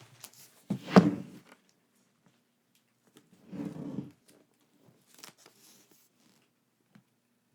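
Merchandise box and its packaging being handled: a sharp thump about a second in, a short scraping rustle a little later, and light taps and clicks.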